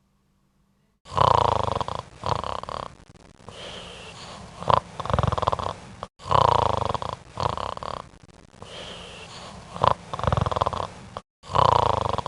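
Loud snoring in repeated cycles about five seconds apart, each opening with a harsh rasping breath.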